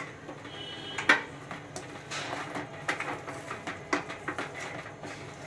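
Wooden spatula stirring and scraping a thick mashed-potato filling in a steel pan, with a few sharp knocks of the spatula against the pan.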